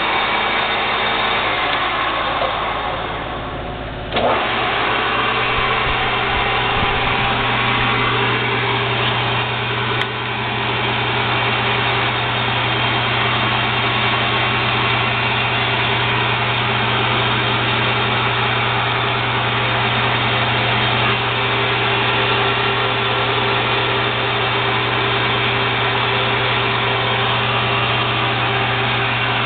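TURNPRO 14" x 40" metal lathe running under power with a steady hum. It briefly drops off about three seconds in and comes back up sharply about a second later, then runs on steadily.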